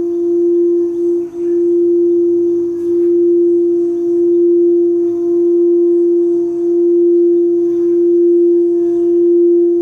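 Singing bowl, the one played for the heart chakra, sounding one sustained steady tone that swells and wavers in slow, regular pulses as it is kept ringing.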